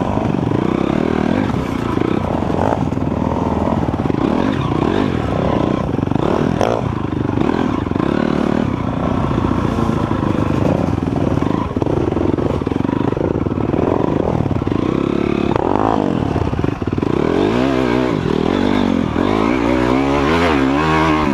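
Dirt bike engine heard up close from the bike itself, revving up and down in quick rises and falls as it is ridden along a rough trail, with clattering from the bike over the ground.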